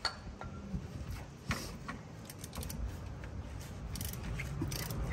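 Hand ratchet wrench clicking in short, irregular runs while working bolts on a car's rear shock absorber.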